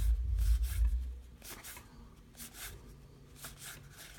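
Baseball trading cards being slid and flipped through by hand: a few short papery swishes, with a low handling rumble in the first second.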